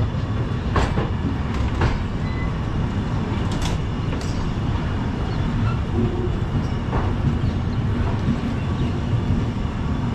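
Running noise of a passenger train heard from an open coach doorway while it moves slowly through a station yard: a steady low rumble with a few sharp, irregular clicks as the wheels cross rail joints and points.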